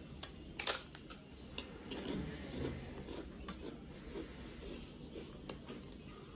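Close-up eating sounds: chewing, with a few sharp clicks, the loudest about a second in and another about five seconds in.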